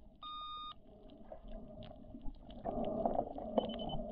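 An electronic beep sounds once, a clear tone about half a second long, soon after the start. A low rumbling noise then builds over the last second and a half, with a brief faint chirp near the end.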